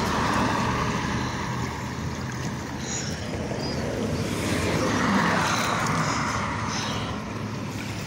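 Standing gutter water draining into a freshly unclogged drain pipe: a steady rushing noise that swells a little near the start and again about five seconds in, over a low steady hum.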